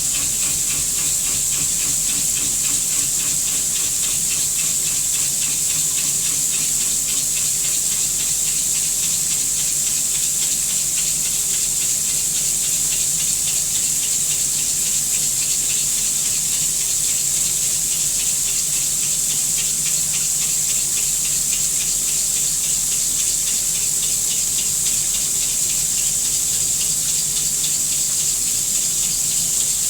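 Haas CNC vertical mill running a cut with flood coolant: a steady rush of coolant spray with a high, even whine.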